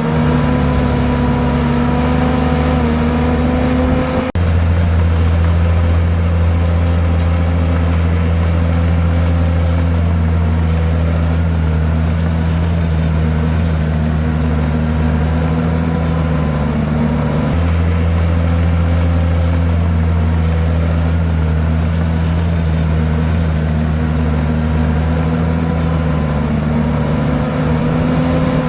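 Komatsu bulldozer's diesel engine running steadily. About four seconds in there is a brief drop, after which its low drone runs louder.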